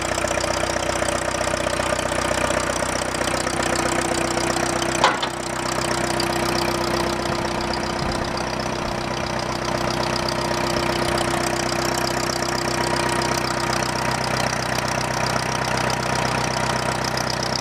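1960 Case 440L backhoe's engine running steadily, with one sharp knock about five seconds in.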